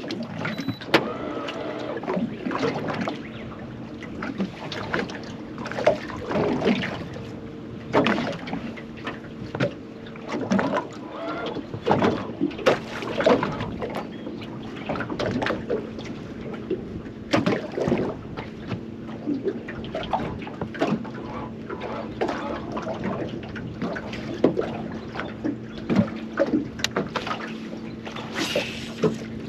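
A small boat's motor running at a steady low speed, with repeated short knocks and water slaps against the hull.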